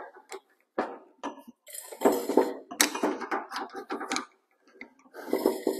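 Steel pliers and metal parts clinking and scraping against the sheave yoke on top of a two-post car lift's hydraulic cylinder rod: a string of short, sharp clinks, some ringing briefly.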